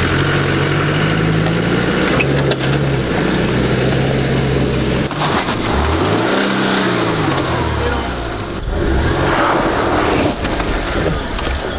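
Four-wheel-drive engines working slowly over a rutted trail. First a Land Rover Defender's engine runs steadily as it crawls through a rut. Then a lifted Subaru Forester's flat-four engine revs up and back down once as it drops into the rut, with tyre and ground noise.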